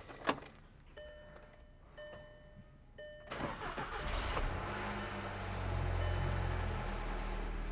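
Three short electronic beeps about a second apart, then the 2008 VW GTI's 2.0 FSI turbocharged four-cylinder engine cranks and starts about three seconds in, settling into a steady idle. This is the first start after an oil filter housing replacement, with the new housing and filter still empty of oil.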